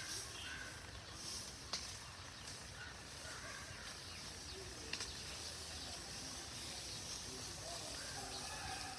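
Faint outdoor rural ambience: a steady hiss with a few faint bird chirps and two sharp clicks, one about two seconds in and one about five seconds in.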